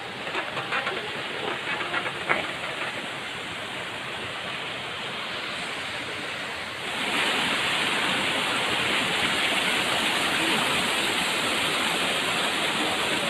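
Rushing water of a waterfall, a steady hiss that turns louder and brighter about seven seconds in.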